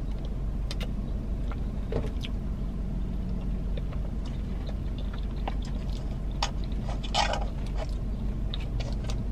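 Close-up eating sounds: a long plastic spoon clicking and scraping in a plastic cup of thick ice cream, soft chewing and lip smacks, with a brief louder slurp about seven seconds in. Underneath runs the steady low hum of the car's interior.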